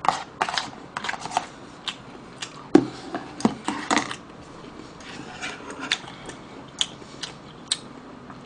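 Close-miked eating: chewing and mouth smacks mixed with light clicks of chopsticks and a plastic food container, busiest in the first four seconds and sparser after.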